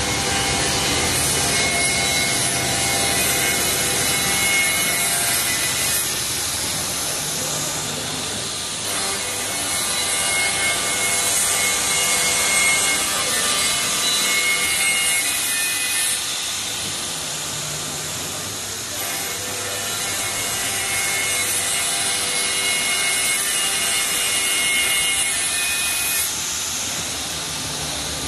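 CNC multi-blade wood panel saw ('4+2' saw blades) cutting a wooden board: a steady whine of spinning saw blades over the noise of the cut. The whine shifts every few seconds.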